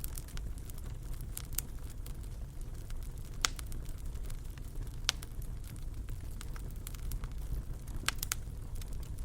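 Wood fire burning in a fireplace: a steady low rumble of flames with scattered crackles and sharp pops, the loudest about a third and half of the way in and a quick pair near the end.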